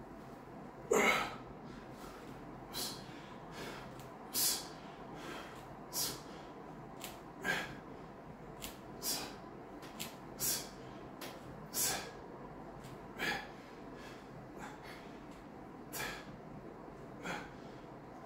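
A man's short, sharp breaths out, about one every second and a half, under the exertion of repeated bench dips.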